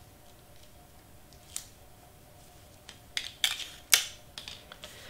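Cardstock pieces being handled and pressed together on a cutting mat: a few short, light clicks and paper rustles, most of them bunched about three to four seconds in.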